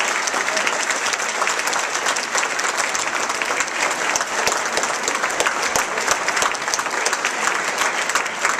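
Theatre audience applauding, a dense, steady clapping that goes on without a break.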